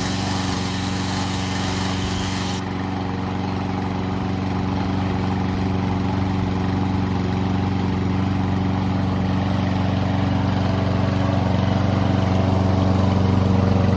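Briggs & Stratton 163cc single-cylinder mower engine on a Toro Recycler running steadily, just after starting, with its no-start carburettor fault now fixed. It is running with its air filter not yet fitted.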